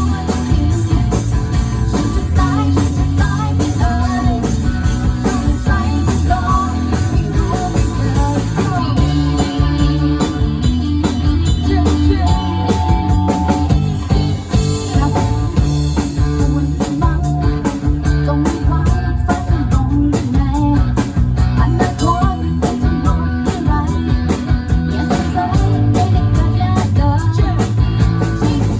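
Live band playing a rock number during a sound check: guitar over a heavy bass line and a steady beat.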